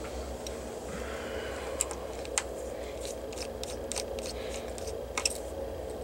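Light clicks and scrapes of a small screwdriver turning out the screws that hold a laptop LCD panel in its lid, with a few sharper ticks about two seconds in and again near the end.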